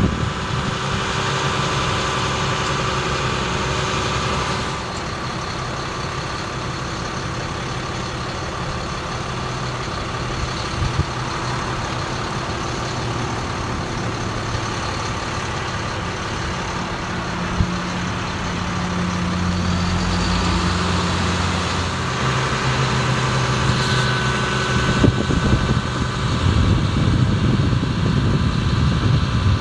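Ford F750 bucket truck's engine running steadily while its Altec aerial boom is worked, with a few light clicks and knocks near the end.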